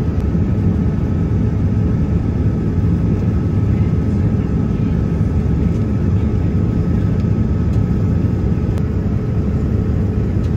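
Steady cabin noise of a Boeing 787-9 airliner in flight, heard from an economy window seat: a constant low drone of engine and airflow noise with a faint steady hum above it.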